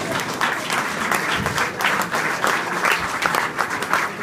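Audience applauding, many hands clapping densely and irregularly.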